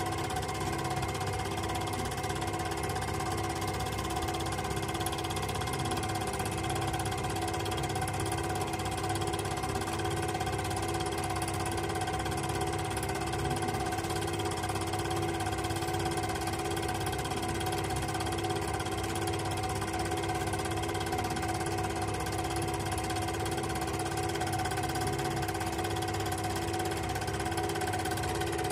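S&B Kentmatic Super 8 P-300 film projector running steadily: its motor, cooling fan and film transport make a constant mechanical hum with a few fixed tones.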